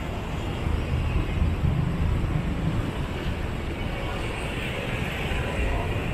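City street traffic: motorbikes and cars passing on the road, a steady low rumble of engines and tyres.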